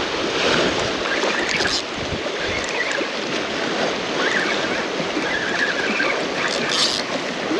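Small waves washing and lapping over a seawall edge, with wind on the microphone and brief splashes about two seconds in and near the end.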